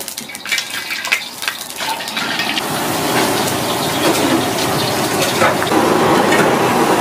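Hot wok crackling and spitting as liquid hits the smoking steel, giving way to a steady sizzling hiss of lobster cooking in sauce that grows louder toward the end.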